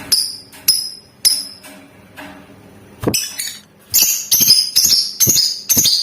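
Lovebird calling with short, shrill, high chirps: three single chirps spaced about half a second apart, then after a pause a quickening run of chirps in the last two seconds.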